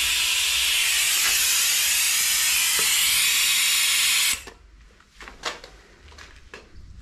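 Compressed-air vacuum brake bleeder hissing steadily as it draws brake fluid and air bubbles from the front brake caliper. The hiss cuts off suddenly about four and a half seconds in, followed by a few light clicks and knocks.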